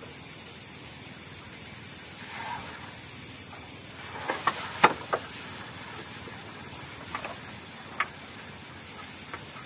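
Steady faint hiss of the night air, broken by a few sharp clicks and taps from handling a fishing rod: a cluster of clicks about four to five seconds in and a single click at about eight seconds, as the rod is lifted out of its holder.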